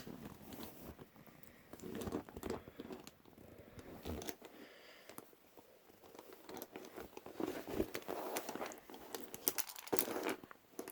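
Padlock and lock-picking tools being handled: faint, scattered clicks and small metallic rattles, busier in the last few seconds.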